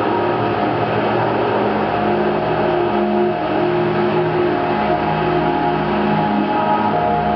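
Ambient drone played on a modular synthesizer: several held tones that fade in and out slowly, layered over a dense hiss, at a steady loudness.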